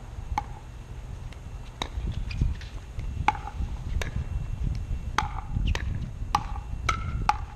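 Pickleball rally: a run of sharp, hollow pops from paddles hitting the plastic ball and the ball bouncing on the hard court. There are about nine in all, spaced out at first and coming about two a second in the second half.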